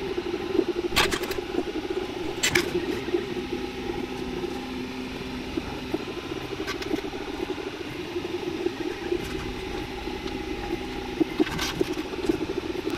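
Original Prusa i3 3D printer's stepper motors buzzing in quickly changing pitches as the print head lays down back-and-forth infill lines. A few sharp clicks come about a second in, at two and a half seconds, and near the end.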